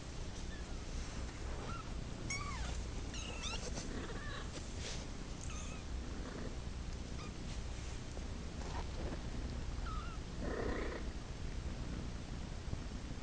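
A kitten mewing in short, high calls that bend in pitch, several in the first few seconds, then a longer, louder cry about ten and a half seconds in: a kitten calling for its mother.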